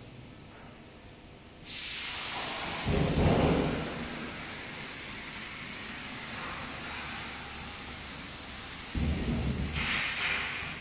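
A steady, loud hiss that starts suddenly about two seconds in and stops near the end, with low rumbles around three seconds in and again near the end.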